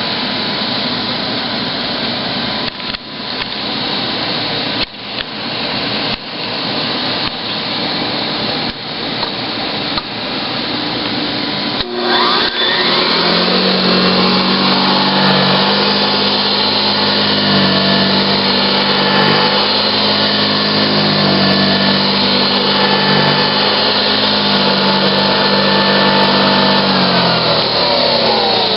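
Hoover Model 60 upright vacuum cleaner running with a loud rushing whir that dips briefly several times. About twelve seconds in the motor winds up in pitch to a louder, steadier run with a hum. Near the end the pitch begins to fall as it winds down.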